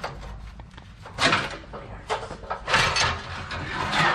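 Metal scraping and clunking in three rough bursts about a second apart as a pry bar works the stock center exhaust section of a Porsche 991.1 GT3 loose.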